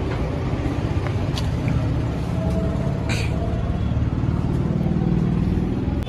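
Steady low rumble of a motor vehicle engine running nearby, with a short high hiss about three seconds in.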